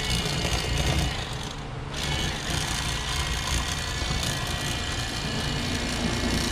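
Bass Pro Shops XPS cordless electric fillet knife running, its motor whining steadily as the reciprocating blades saw through a bass. The motor cuts out briefly just before two seconds in, then runs again.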